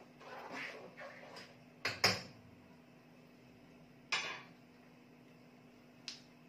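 Kitchen utensils and pots clinking and knocking in a few sharp hits: a loud pair about two seconds in, then single ones about four and six seconds in. A faint steady hum runs underneath.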